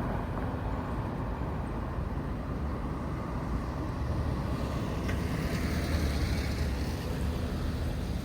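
Road traffic at a street junction: vehicles passing, a steady low noise with no crossing bell.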